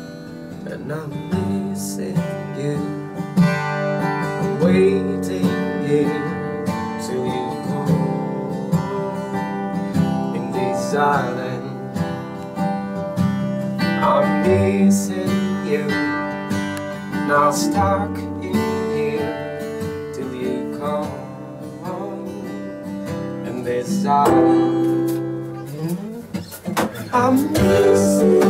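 Three acoustic guitars playing a song together, with strummed chords and separate picked notes, getting louder near the end.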